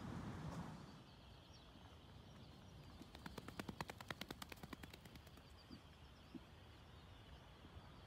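Laysan albatross bill-clapping: a rapid clattering rattle of sharp clacks, about ten a second, lasting roughly two seconds near the middle. Faint high bird chirps sound throughout.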